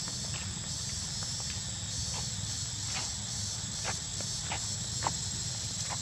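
Steady high-pitched drone of insects, over a low rumble, with scattered short clicks and ticks.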